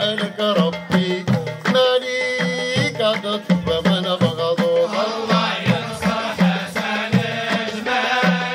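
Moroccan daqqa ensemble: men's voices singing together over a steady rhythm of small clay goblet drums (taarija) and hand clapping.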